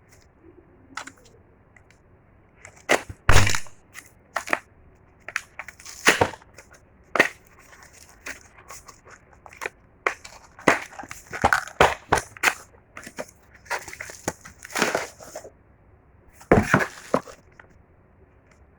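Packaging being handled and opened: a string of irregular crackles, crunches and crinkles, some sharp and loud, with short pauses between them.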